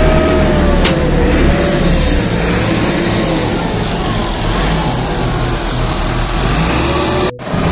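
Massey Ferguson tractor's diesel engine running steadily, its pitch wavering slightly. The sound drops out briefly near the end.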